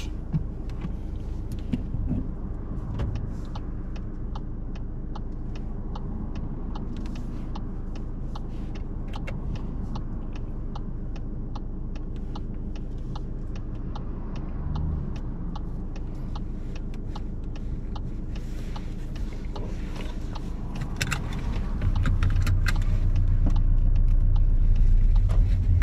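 Car engine idling, heard inside the cabin, with light ticks over it; near the end the engine note rises as the car pulls away from the kerb.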